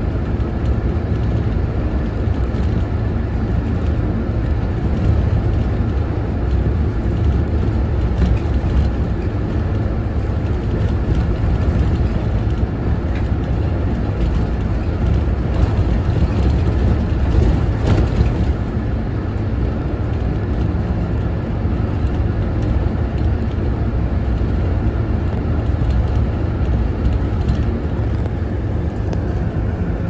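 Route bus driving along, its engine and road noise a steady low rumble inside the passenger cabin.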